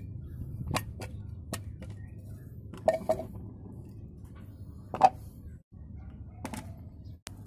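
Plastic blender parts being handled and set down on concrete: the jar and blade base knocking and clicking in a series of short clunks, the loudest about five seconds in, over a steady low hum.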